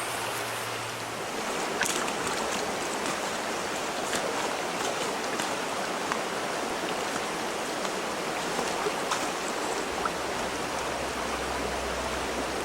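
Small trout stream running, a steady rush of flowing water.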